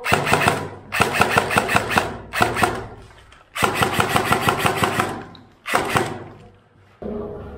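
Airsoft rifle firing five full-auto bursts of rapid clicking shots, the longest lasting over a second.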